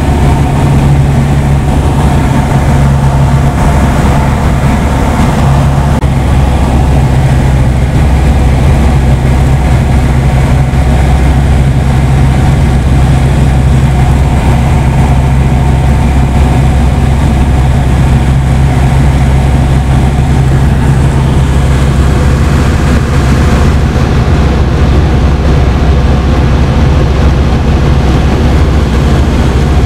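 A light aircraft's piston engine and propeller running steadily at cruise, heard loud inside the cockpit in flight.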